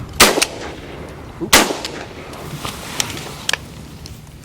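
Two shotgun blasts about a second and a half apart, fired at incoming ducks, followed by a couple of much fainter sharp sounds.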